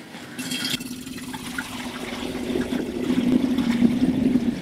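Apple juice pouring from a plastic jug through a funnel into a 5-litre glass bottle, a steady splashing fill that grows louder as the stream builds.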